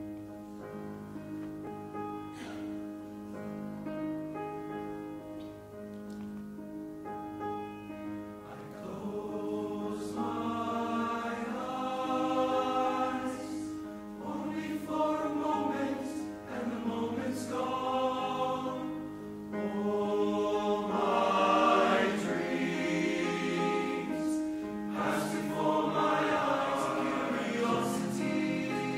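Teenage boys' choir singing in several parts, soft held chords at first, growing fuller and louder with moving notes from about nine seconds in.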